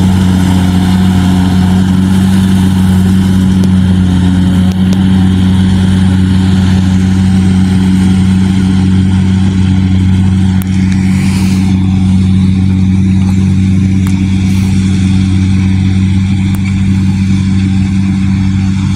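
Kubota DC-70G Plus combine harvester's diesel engine running steadily under working load, a loud, even drone.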